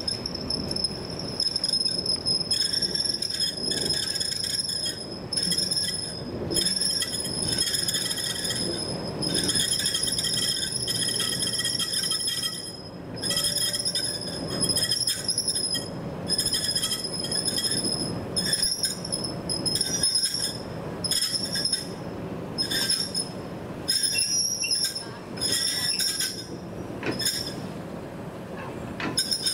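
Train wheels squealing on the rails: a high-pitched squeal that cuts in and out again and again over the low rumble of the passing train.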